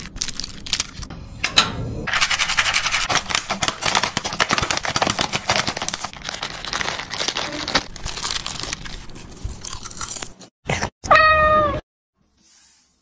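Dense, crackling noise full of fine clicks for about ten seconds, then a domestic cat meows once, briefly, about eleven seconds in.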